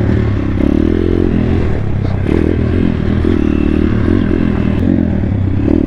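Single-cylinder four-stroke engine of a 140cc Thumpstar pit bike running, its revs rising and falling a little.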